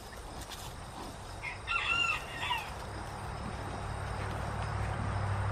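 A rooster crows once, about two seconds in. A low hum grows steadily louder toward the end.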